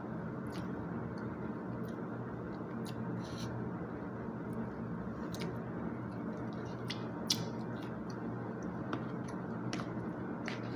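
Eating sounds: chewing, and scattered light clicks of a plastic fork and spoon against a plastic meal tray, with one sharper click about seven seconds in. Over a steady low room hum.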